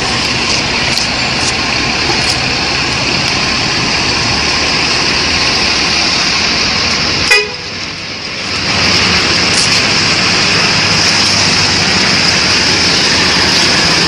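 Tour bus engine running as the bus moves close by, a steady rush of engine and road noise. A sharp click and a short dip come about seven seconds in, after which the noise is louder and brighter.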